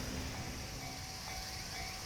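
Japanese level-crossing warning bell ringing, a repeating electronic ding about twice a second, over the low rumble of a passing train dying away.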